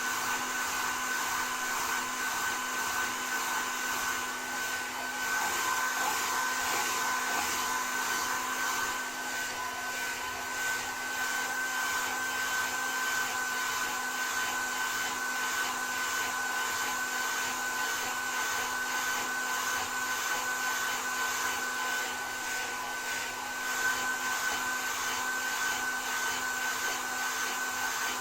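Hand-held hair dryer running steadily: a continuous rush of air with a steady motor whine that holds the same pitch throughout.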